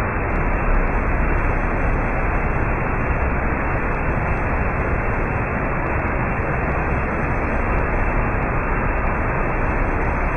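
Steady, dull rushing noise with no high hiss, holding level throughout, with no separate hits or tones.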